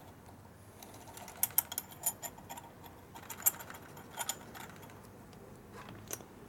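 A scattering of light, sharp clicks and ticks, clustered between about one and a half and four and a half seconds in, with one more near the end, from metal parts being handled: a T5 transmission shaft turned and worked with a small applicator bottle at its end.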